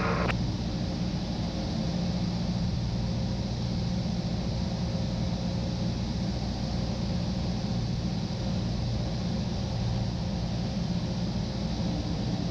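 Steady drone of a Cessna 172's piston engine and propeller in cruise, heard inside the cabin, with an even pitch throughout.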